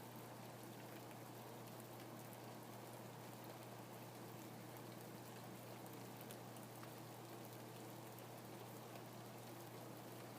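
Steady, faint rainfall, with scattered drops ticking through it.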